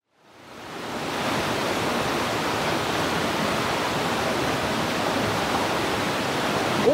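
Mountain stream rushing over boulders, with a small cascade: a steady wash of running water that fades in over about the first second.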